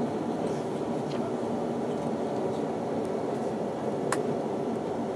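Cabin noise of an L0 series maglev car rolling slowly on its rubber-tyred support wheels after coming down from levitation: a steady low rumble heard inside the car. There is a single sharp click about four seconds in.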